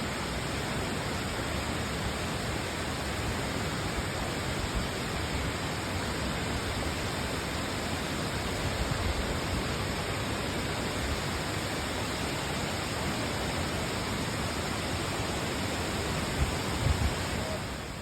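Waterfall: a steady, even rush of falling water. A few brief low thumps sound near the end.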